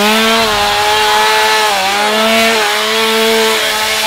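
Chainsaw running at high revs and cutting through a pumpkin. Its pitch dips briefly twice as the chain bites, about two seconds in.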